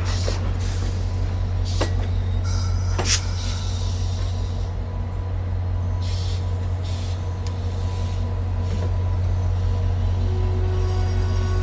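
VIA Rail passenger train rolling slowly in behind its diesel locomotives: a steady low rumble with short hisses and a few sharp clanks from the cars, one loud clank about three seconds in.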